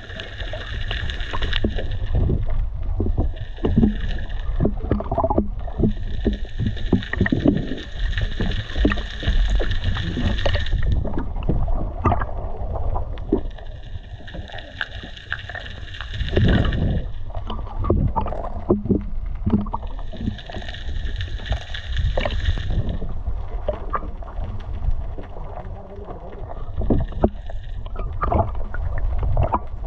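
Steady low rumble of wind and sea on a small fishing boat, with a high whirring that comes and goes in spells lasting a few seconds.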